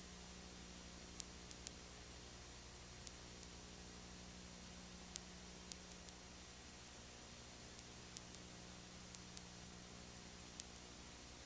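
Near silence: a recording's steady hiss and electrical hum, with scattered faint clicks at irregular intervals.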